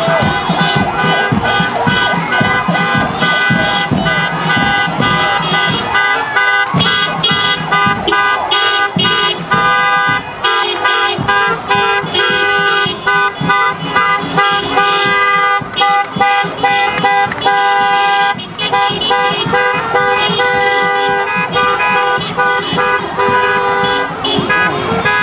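Many car horns honking at once from a slow convoy of cars, long held blasts at several different pitches overlapping and starting and stopping throughout.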